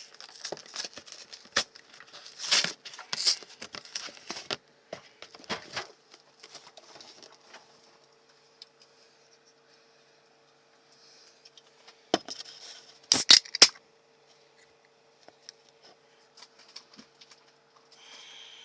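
A cardboard drink 12-pack being opened and handled, with dense rustling, tearing and clicking for the first several seconds. About 12 to 13 seconds in come a few sharp, loud clicks: a drink can's tab being cracked open.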